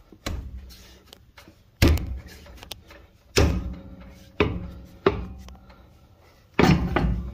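A series of six heavy knocks at uneven intervals, each sharp at the start and fading out over about half a second.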